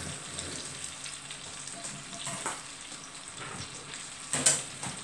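Whole bananas sizzling steadily as they fry in melted margarine in a frying pan, with a few short sharp sounds, the loudest near the end.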